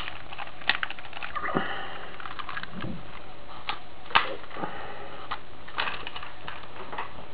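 Plastic and die-cast parts of a Godaikin transforming toy robot clicking and knocking as they are handled and moved. The clicks come at irregular intervals, with a louder snap about four seconds in.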